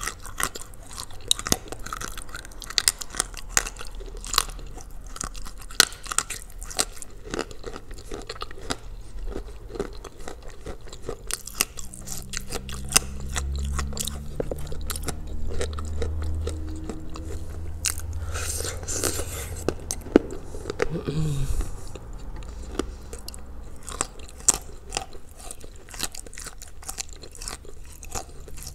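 Close-up crunching and chewing of Ural chalk soaked in blue Uzbek clay: a dense run of sharp bites and crunches. A low hum is heard for several seconds in the middle.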